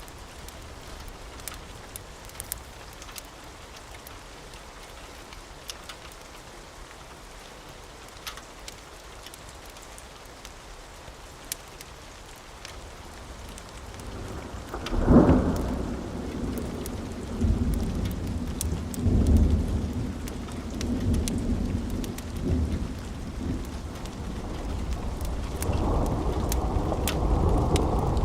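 Steady rain with scattered sharp ticks. About halfway through, a sudden thunderclap breaks in, followed by rolling thunder that swells and fades several times and builds again near the end.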